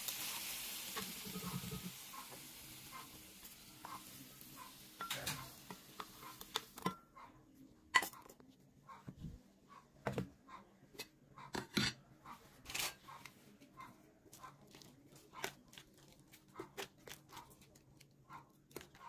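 Sautéed luffa sizzling in a pan as it is stirred with a spatula, the hiss fading and then stopping about seven seconds in. After that come scattered clicks and knocks of a spatula and spoon against the pan and a glass blender jar.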